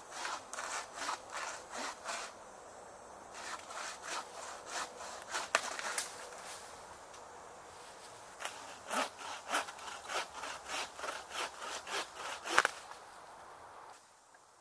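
Hand saw cutting through a branch in three runs of quick back-and-forth strokes, about three a second, with short pauses between them. A sharp, louder crack ends the last run.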